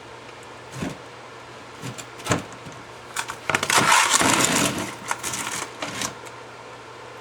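Metal work on a car's front disc brake: a couple of sharp knocks, then about a second and a half of loud rattling, then a run of clicks.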